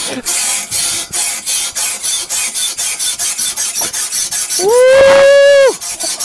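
A rapid rhythmic rasping close to the microphone, about four pulses a second. Near the end a man lets out a loud yell, held for about a second.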